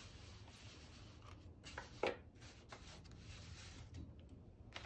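Faint strokes of a Sharpie felt-tip marker drawing on an acrylic-painted paper surface, the clearest of them about two seconds in.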